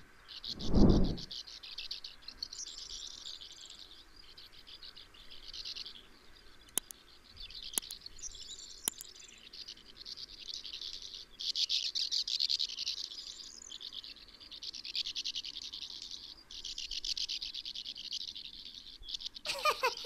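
Sand martins twittering: dry, buzzy chatter in bouts a second or a few seconds long, with short breaks between.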